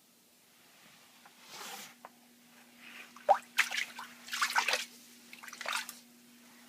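Wet squishing and splashing from water-soaked materials, in several short irregular bursts over a few seconds, with a faint steady hum underneath.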